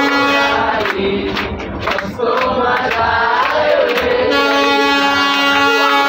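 A group of young people singing a song together and clapping along by hand. A long steady tone sounds under the singing at the start, drops out for about three seconds, then returns.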